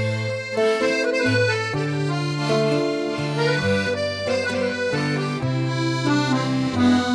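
Instrumental introduction of a habanera: accordion playing held chords over a bass line that steps to a new note about once a second.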